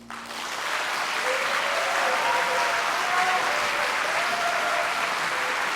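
Audience applauding after an orchestra's final chord, breaking out at once and holding steady, with a few voices calling out over the clapping.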